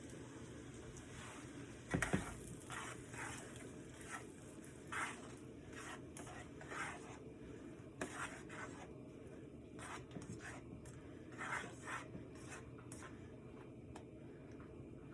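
Seasoning shaker shaken over food in a string of short, uneven shakes, with a sharp knock about two seconds in.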